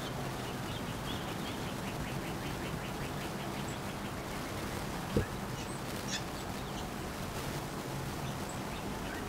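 A bird chirping in a rapid, even series of short high notes, about seven a second, over a steady low hum. A single soft knock sounds about five seconds in.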